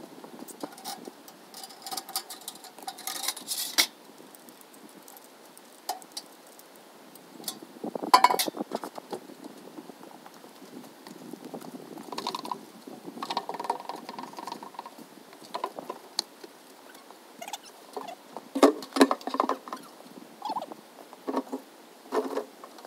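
Blue plastic rain barrels being dragged and set up on a wooden stand: irregular knocks, bumps and scraping, loudest in a cluster about eight seconds in and again about three-quarters of the way through.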